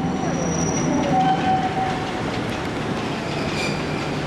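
Botchan Ressha, the diesel-powered replica steam train, rolling slowly along a curved street-tram track. Its wheels squeal thinly on the curve in the first two seconds. Later come a few sharp clicks as the wheels cross rail joints and points, over a steady low engine hum.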